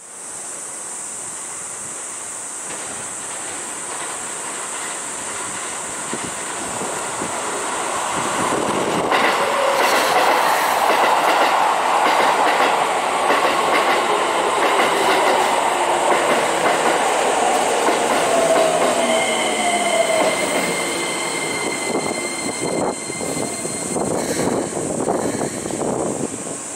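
Keikyu New 1000 series electric train running into the station at high speed, swelling louder as it nears, its wheels clattering over rail joints and points. It then brakes hard to a stop, with a steady high squeal for a few seconds near the end.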